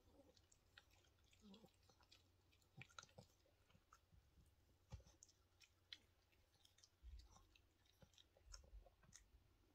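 Yorkshire terrier chewing and gnawing a treat: faint, irregular clicks and crunches of teeth on the chew, with a few soft low bumps.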